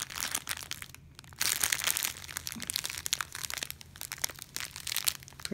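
Clear plastic bag packed with small packets of resin diamond-painting drills crinkling as it is handled and turned over. There is a short lull about a second in, then louder crinkling.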